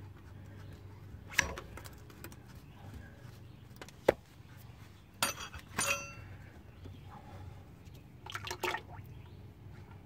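Sharp metallic clinks and knocks from the oil filter wrench and the old oil filter as the filter is twisted off a 6.6 L Duramax diesel during an oil change. One clink rings briefly, with a faint trickle of draining oil in between.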